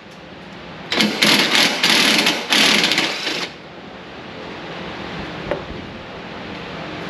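Ratchet wrench backing out a headlight bracket bolt: rapid ratcheting clicks in a few short bursts during the first half. The bolt comes out without breaking.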